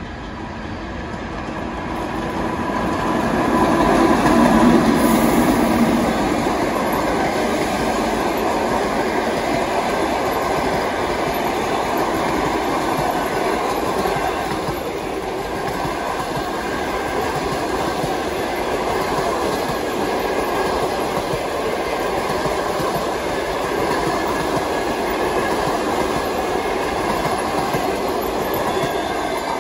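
EP2K electric locomotive and express passenger train passing close by. The noise builds as the locomotive approaches and is loudest as it passes about five seconds in, then settles into the steady rolling noise of the passenger coaches' wheels on the rails.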